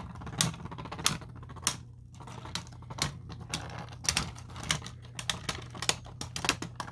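Two spinning Beyblade tops colliding in a plastic stadium, a fast, irregular run of sharp clicks.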